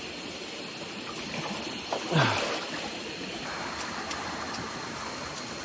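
Shallow stream water trickling and running over rocks steadily, with one brief louder noise about two seconds in.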